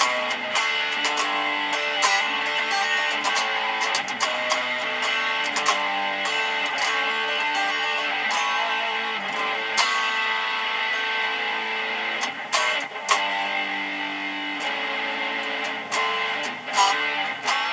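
Electric guitar through a Duncan Designed HB102B humbucking pickup, played in a free improvisation of picked single notes and strums, with a few sharper accented attacks late on.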